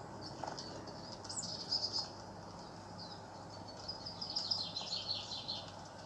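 Birds chirping in a wildlife video playing through a tablet's small speaker: a falling chirp with a few short ones about a second in, then a fast run of chirps past the middle.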